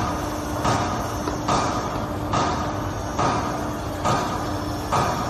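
Shoe-moulding machinery running in a steady rhythm: a short burst of noise a little more often than once a second, over a continuous low hum.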